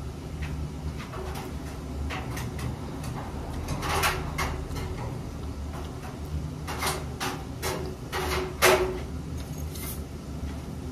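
A fork clinking and scraping on a ceramic plate in scattered short knocks, most of them in the second half, over a steady low hum.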